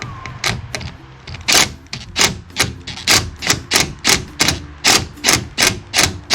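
A tool clicking in an even rhythm, about three sharp clicks a second, as a screw is driven back into a truck tail light housing, over faint background music.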